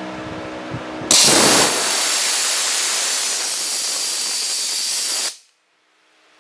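Electric timed automatic drain valve on a pressurised air compressor tank opening about a second in: compressed air hisses loudly out of the drain, blowing water out of the tank, for about four seconds, then cuts off suddenly as the valve closes. A steady hum is heard before the blast.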